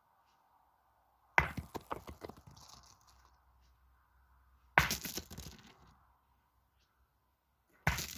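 Steel pétanque boules struck by shots: three sharp metallic clacks a few seconds apart. Each is followed by a quick run of smaller clicks and knocks as the boules scatter.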